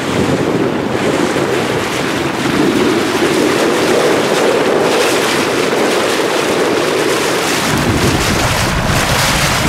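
Speedboat under way across open water: steady engine and water rushing past the hull, with wind buffeting the microphone that grows heavier about eight seconds in.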